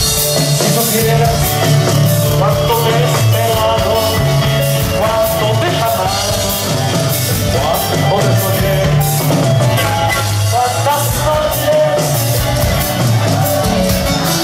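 Andean folk band playing live through a PA: strummed acoustic guitars with group singing over a steady bass line and percussion.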